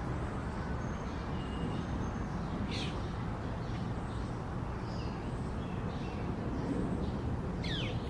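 Wild birds calling faintly with short chirps and whistles, including two quick falling calls, over a steady low rumble.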